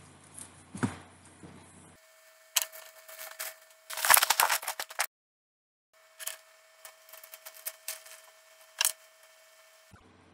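Small plastic bags and packaging crinkling and rustling as they are handled, loudest about four seconds in, with a few sharp clicks. The sound cuts out completely for about a second midway.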